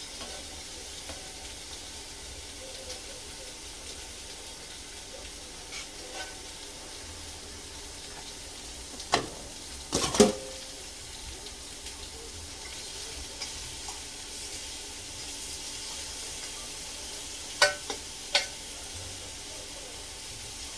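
Sliced zucchini sizzling in olive oil in a frying pan: a steady, even frying hiss. A few sharp knocks cut through it, a cluster about nine to ten seconds in and two more near the end.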